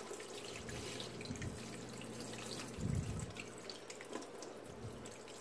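A mix of distilled water and rubbing alcohol poured from a plastic gallon jug, splashing steadily onto a telescope mirror in a dish strainer in a sink. A low thump comes about three seconds in.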